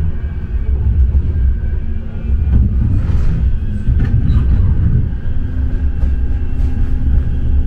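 Bombardier M5000 light-rail tram running along the track, heard from inside the car: a steady low rumble of wheels on rail with a faint steady motor whine, and a few light clicks and rattles about halfway.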